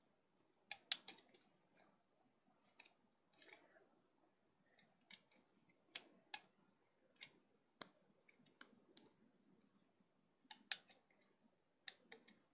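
Faint, irregular clicks and snaps of rubber bands being stretched and hooked onto the pegs of a clear plastic Bandaloom, a dozen or so scattered over the stretch.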